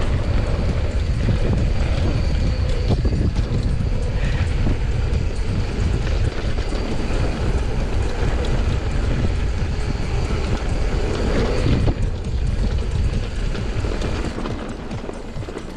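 YT Industries mountain bike riding fast down a packed-dirt trail: tyres rumbling over the dirt and the bike rattling over the bumps, with wind on the microphone. It eases off near the end.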